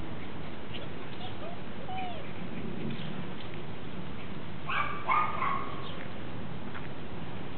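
Small dog barking: a quick burst of high-pitched yaps a little under five seconds in, while the dogs play.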